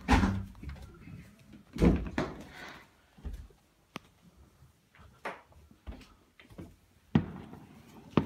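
Fireworks going off: a series of separate bangs, the loudest at the start and about two seconds in, a sharp crack about seven seconds in, and smaller pops between.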